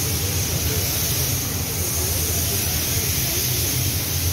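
Steady low mechanical hum under a constant hiss, with faint voices in the background.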